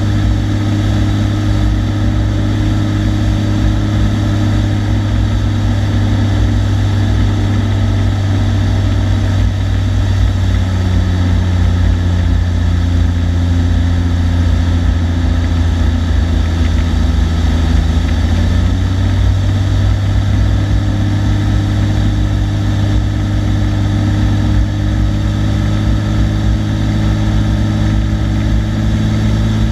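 Cessna TU-206D's turbocharged six-cylinder piston engine and propeller running steadily on the approach to landing, a loud droning with an even pitch. The tone shifts between about ten and nineteen seconds in, then settles back.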